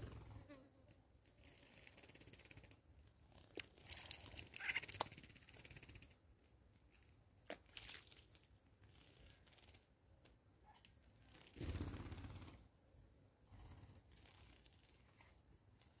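Small birds bathing in a shallow dish of water, faintly splashing and fluttering their wings in it in several short bursts.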